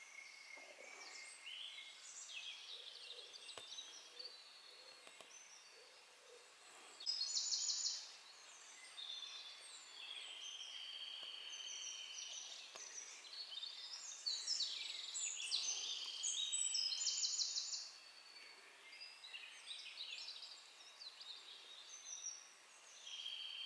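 Small songbirds singing: a continuing string of high, thin warbled phrases, with loud rapid trills about seven seconds in and again from about fifteen to seventeen seconds.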